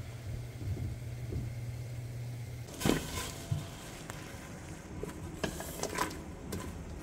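A steady low hum, then water bubbling at a boil in a stainless steel stockpot. Near the end come a few sharp clicks and knocks as garlic cloves are slid off a wooden cutting board into the pot.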